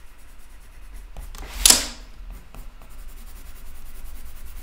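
Coloured pencil scratching back and forth on textured drawing paper under medium-to-hard pressure, burnishing a patch of dark green to flatten the paper's tooth. A short, louder noise comes about a second and a half in.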